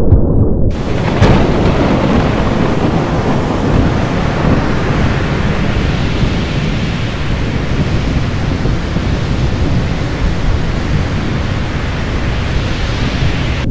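Thunderstorm sound effect: a sudden crack of thunder about a second in, then a loud, steady rush of heavy rain with rolling thunder underneath.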